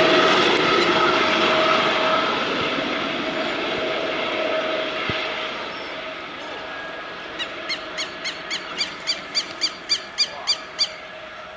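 Eurocopter AS365 N2 Dauphin helicopter flying away, its steady high whine and rotor noise fading. Near the end a rapid series of sharp high chirps, about three a second, grows louder over it.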